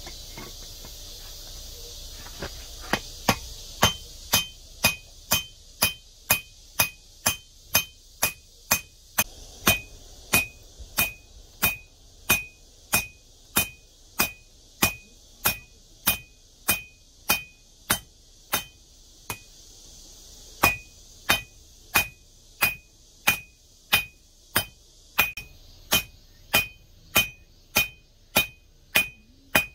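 Hammer blows on red-hot steel on an anvil as a knife blade made from an old pipe wrench is forged, each blow ringing. The blows begin about three seconds in and come at an even pace of roughly two a second, with one short pause about two-thirds of the way through.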